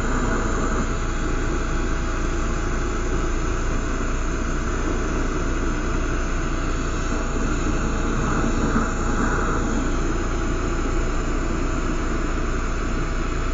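Lampworking torch flame burning with a steady rushing noise that does not change.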